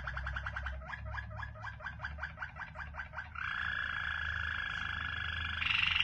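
Waterslager canary singing in low, rolling tours: fast repeated notes that slow into spaced rolling notes about a second in, then a steady trill from about halfway, jumping higher in pitch near the end.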